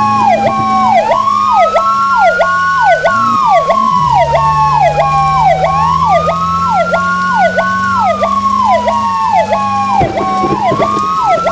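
Fire apparatus sirens responding to an alarm. A slow wail rises quickly and falls away slowly, about every five seconds, while a second, faster siren repeats a short falling sweep over and over. A low steady drone sits underneath.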